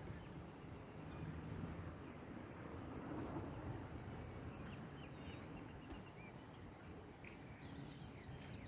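Natural outdoor ambience: a steady low background hiss with high-pitched chirping from wild animals, including a rapid chirping trill about three and a half seconds in and scattered chirps again near the end.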